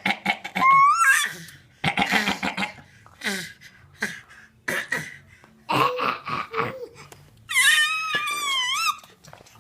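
A dog's raspy, cough-like growls in short bursts, with high whines between them and one long wavering whine near the end.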